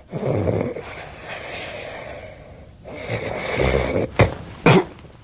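A man snoring in his sleep, then two short loud snorts a little after four seconds in as he wakes.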